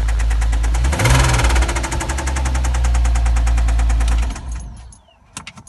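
2007 Porsche Cayman's flat-six engine idling with a rapid, even ticking, the noise the owner is asking about. It rises briefly about a second in, then the engine is switched off and runs down, followed by a few sharp clicks.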